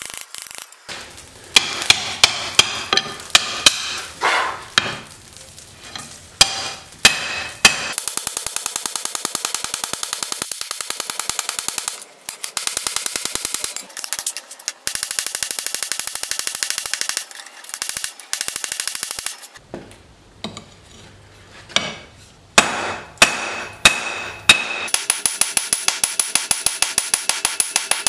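Hand hammer striking red-hot O1 tool steel on an anvil, each blow with a short metallic ring. The blows come irregularly at first, then in fast, even runs.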